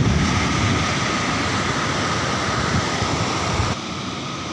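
Mountain stream rushing and splashing over rocks, a steady loud rush of water that drops to a quieter, more distant rush near the end.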